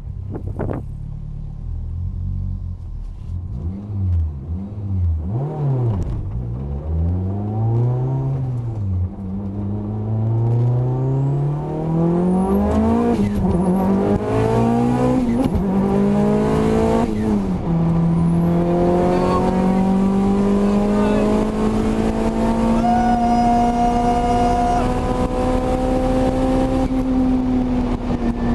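Mitsubishi Lancer Evolution's turbocharged four-cylinder engine under hard acceleration. It is blipped up and down a few times, then launches and pulls through quick upshifts, each climb in revs cut off by a sudden drop about every one to two seconds. It then holds a long pull in a high gear with the pitch rising slowly, easing off near the end.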